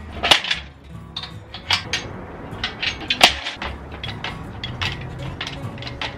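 Irregular sharp metal clanks and knocks from a steel engine hoist being handled and moved, with a louder knock about three seconds in.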